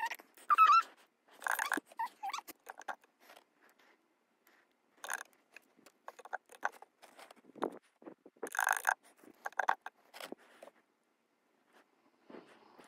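A small kitten mews with a wavering pitch near the start, among scattered short rustles, taps and scrapes as plastic oral syringes are dipped into a bottle of wormer suspension and laid down on a paper towel.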